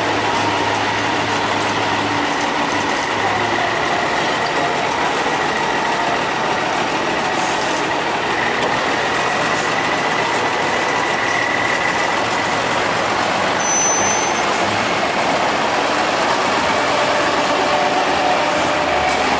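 Tatra 815 8x8 truck's diesel engine running steadily at low speed as the truck crawls over the crest of a steep dirt bank.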